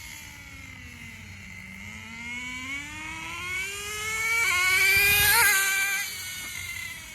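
Small .15 nitro engine of an RC car running, with a high whine. The whine dips in pitch, then climbs as the throttle opens. It is loudest for about a second and a half late on as the car passes close, then drops away.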